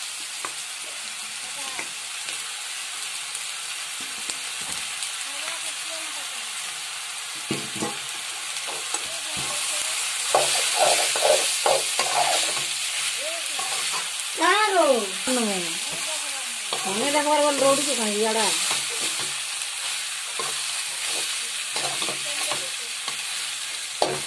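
Chicken pieces with onions and spices sizzling as they fry in an aluminium kadai, a steel spoon stirring and scraping against the pan. Two short pitched sounds slide in pitch about halfway through.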